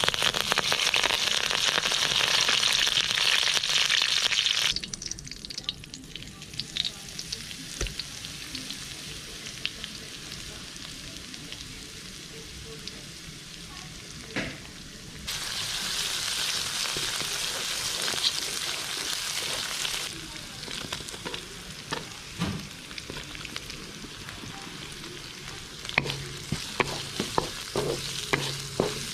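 Food sizzling in hot oil in a kadhai. The sizzle is loud at first, drops suddenly, comes back loud midway, then turns quieter, with a run of clicks and taps from stirring near the end.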